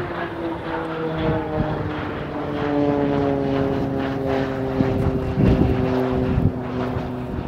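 Pilatus PC-9's Pratt & Whitney PT6A turboprop and propeller droning overhead during a climbing aerobatic pass: a steady buzzing tone that slowly falls in pitch. A brief low rumble comes about five and a half seconds in.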